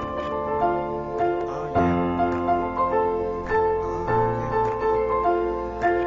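Background music: a repeating piano melody over bass notes and a light beat, the instrumental intro of a rap track.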